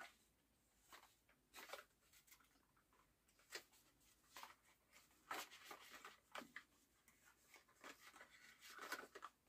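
Faint, scattered rustles and light clicks of packaging and cardboard golf-ball sleeves being handled, in a near-silent room.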